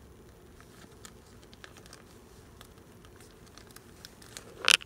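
Clear plastic binder pocket sleeves rustling and crinkling under the hands as a photocard is handled and fitted into a pocket: faint light clicks and ticks, then one short, louder crinkle near the end.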